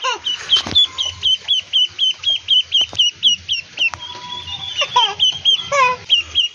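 Duckling peeping persistently, a fast run of short, high chirps at about four a second.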